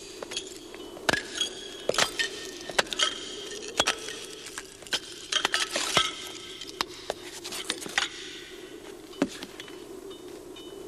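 Irregular clinking and clattering of glass and small metal objects being knocked about and rummaged, dense for the first six seconds or so, then sparser, over a steady low hum.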